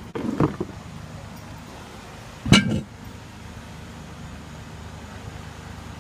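Sledgehammer and pry bar knocking on a zero-turn mower tire and its steel rim: a short cluster of knocks about half a second in, then a louder single metallic clank with a brief ring about two and a half seconds in, over a steady low hum.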